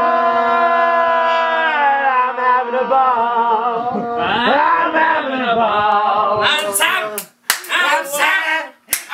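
A man's loud, drawn-out wail held on one steady pitch, which then wavers, bends and breaks up into shorter, ragged crying bursts.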